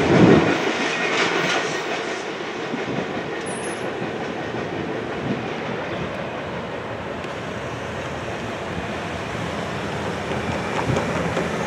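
Last freight cars of a coil steel train clattering past over the rails, loud at first and dropping off within about two seconds to a steady, lower rumble as the train moves away. Road traffic starts to pass near the end.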